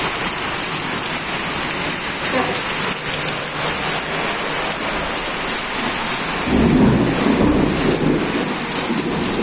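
Heavy rain pouring in a windy storm, a steady hiss, with a low rumble swelling about six and a half seconds in and lasting a second or two.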